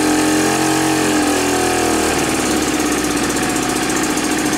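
Soviet Veterok 8 two-cylinder two-stroke outboard engine running just after its first start since restoration, throttle about 20 percent open. The revs swell and ease off over the first two seconds, then it runs steadily. It is running dry, with no cooling water.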